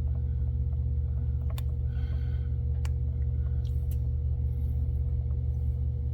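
Steady low machine hum with a faint constant tone above it, and a few light ticks.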